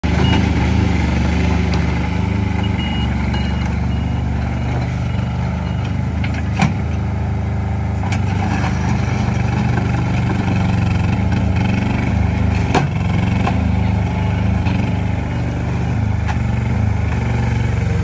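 Small engine of a compact skid steer loader running steadily. Two sharp knocks come about six seconds apart, and a short high beep repeats through the first six seconds.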